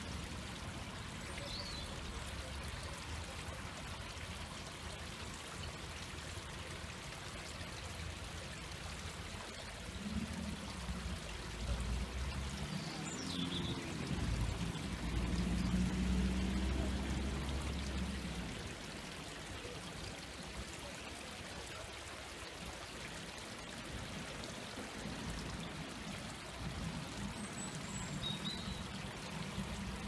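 Shallow stream running over a low weir: steady babbling flow of water. A low rumble swells for several seconds midway, and a few faint high chirps come and go.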